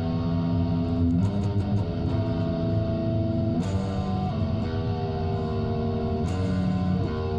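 Fender Thinline Telecaster electric guitar playing held chords that change about a second in, again around the middle, and once more near the end.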